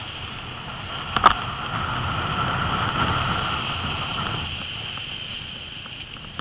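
Wind and handling noise on a phone's microphone as it is swung about: a steady rush that eases after about four and a half seconds, with a single sharp knock about a second in.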